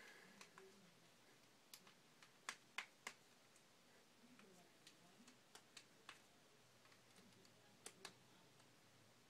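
Faint, scattered clicks and taps of K'nex plastic rods and connectors being handled and snapped together as a chest harness is fitted on, with a cluster of louder clicks about two and a half to three seconds in.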